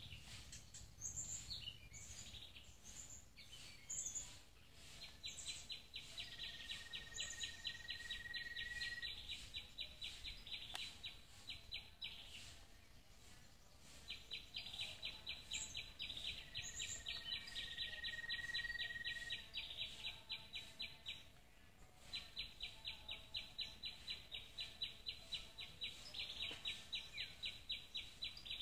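Outdoor wildlife ambience of calling birds: scattered short high chirps, and long runs of a fast, evenly pulsing trill that stops and restarts twice. Twice a thin, steady whistle is held beneath the trill for a few seconds.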